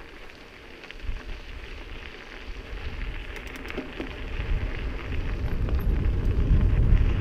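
Mountain bike tyres rolling over a gravel trail with a steady crackle, and wind rumbling on the microphone that gets louder as the bike picks up speed in the last few seconds.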